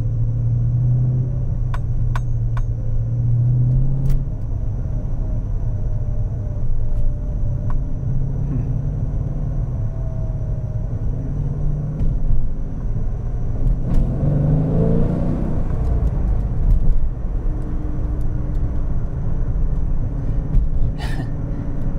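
Dodge Challenger's 392 HEMI V8, fitted with an aftermarket cam, running steadily as the car is driven, with a brief rise in engine pitch about two-thirds of the way in as it picks up speed.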